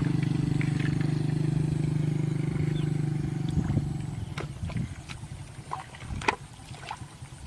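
A small engine running steadily and then fading away after about four seconds. Scattered light knocks and clicks follow.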